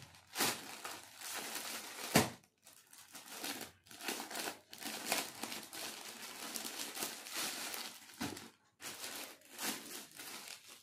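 Plastic parcel packaging crinkling and rustling in irregular bursts as it is handled and opened, with one sharp crack about two seconds in.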